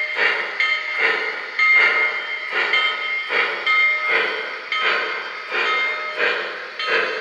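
Model 2-8-2 steam locomotive's onboard sound chuffing in a steady, even rhythm while it pulls a freight train, thin on bass like a small speaker.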